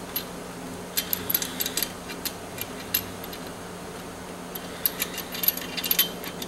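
Light metallic clicks and clinks of a stainless steel sanitary tack clamp being handled, closed around tubing and its T-handle wing nut swung into place, in two bunches about a second in and again around five seconds.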